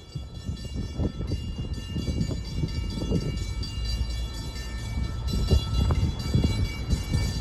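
Locomotive's Nathan K5LA five-chime air horn sounding one long, steady blast over a low rumble.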